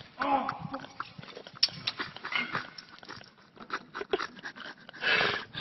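Bicycles rattling and clinking in a rack as a fallen person struggles among them, scattered clicks throughout. A short vocal cry comes near the start and a loud breathy outburst near the end.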